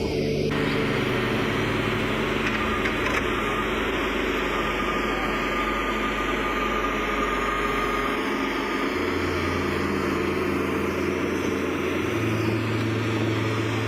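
A vehicle engine running steadily under a broad noisy hiss, its low hum shifting to a different pitch a couple of times.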